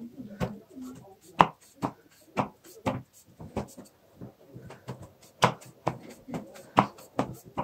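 A kitchen knife cutting through layers of raw baklava dough in a metal tray, making a series of sharp taps and clicks about two a second as the blade strikes the tray.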